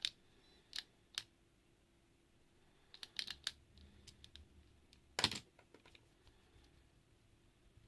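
Mechanical keyboard keys clacking in sparse, irregular keystrokes: a few single strokes, a short flurry about three seconds in, and the loudest knock a little after five seconds, with pauses between.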